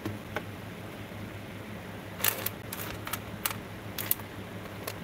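Handling noise from the soldered sea glass figure being turned in a gloved hand: a scatter of light, sharp clicks and crinkles in the second half, over a steady low hum.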